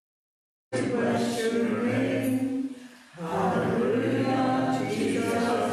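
Congregation singing a hymn together, with a short break between lines about three seconds in. The sound drops out completely for a moment at the very start.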